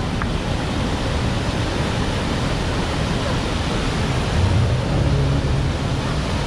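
Steady roar of the Iguazu waterfalls and the churning river, a loud even rush of water. A low hum swells briefly about four and a half seconds in.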